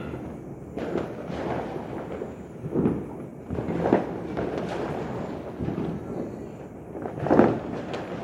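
New Year fireworks going off in a series of irregular bangs and booms, the loudest a little past seven seconds in.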